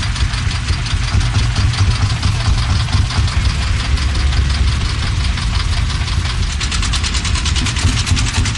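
Old diesel tractor engines running at idle with a steady low rumble and knocking. About six and a half seconds in, a rapid, even chugging grows louder.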